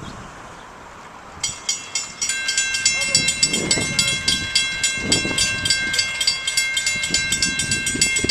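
Railroad grade-crossing bell that starts about a second and a half in: a rapid, steady run of metallic strikes with ringing tones, the warning that a train is approaching.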